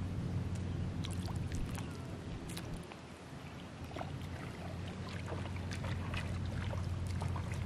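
Faint lake water lapping and trickling at a wooden dock, with small scattered splashes over a steady low hum.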